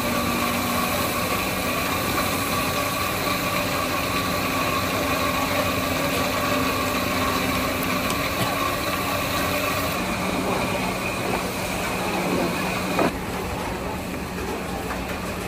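A steady mechanical hum with a few even tones running through it, which shift slightly about ten seconds in; a single sharp click about thirteen seconds in.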